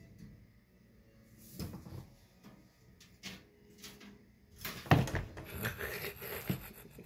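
Scattered knocks and scrapes against a metal mesh rack, then a cluster of louder knocks and rustling about five seconds in as a long-haired cat tussles under and against it.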